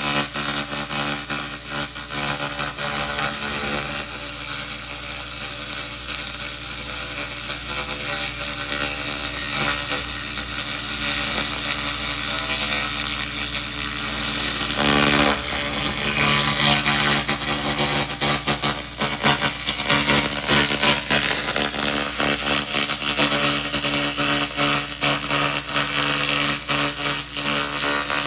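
SFX 2000 W laser rust remover stripping rust from metal: a dense crackling hiss over the steady hum of the machine. It gets louder about halfway through.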